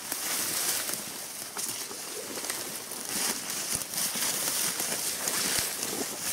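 Footsteps through forest leaf litter and undergrowth, leaves and twigs crackling and rustling underfoot at an irregular pace.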